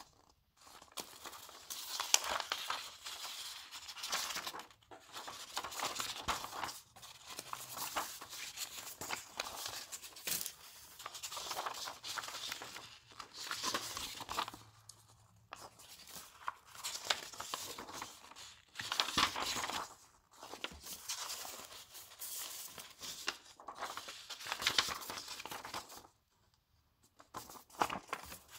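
Paper photo sheets and booklet pages rustling and crinkling as they are handled and leafed through, in irregular bursts with short pauses and one longer near-silent pause near the end.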